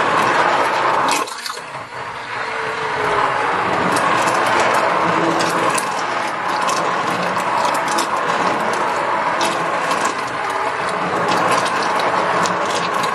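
Hand-held immersion blender running in a pot of soup, a steady motor whir with the blade churning through the liquid, pureeing it smooth. It dips briefly about a second in, then runs on.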